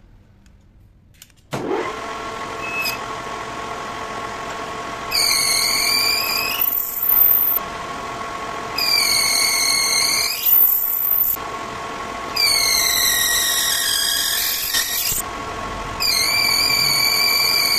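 Metal lathe starting up about a second and a half in, its motor and spindle spinning up and then running with a steady hum. Four times, for two to three seconds each, the tool bit cutting the spinning workpiece sets up a high-pitched squeal over the hum.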